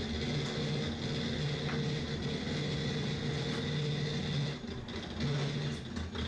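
Steady low mechanical hum with a faint high whine above it. The lower tone drops out and returns a few times.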